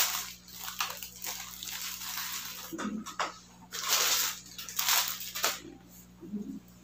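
Thin plastic carrier bag rustling and crinkling in irregular bursts as it is handled, with a few small clicks mixed in.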